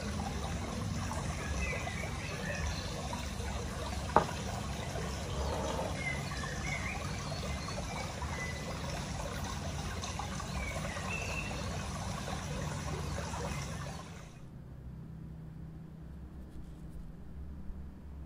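Steady trickling water with a few faint high chirps and one sharp click about four seconds in. It stops about fourteen seconds in, leaving a quieter low hum.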